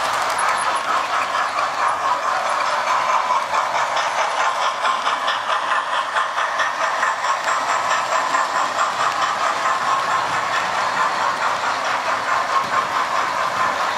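Model trains running on a model railway layout: small electric motors whirring and metal wheels clicking fast and steadily over the track's rail joints as locomotives and coaches pass.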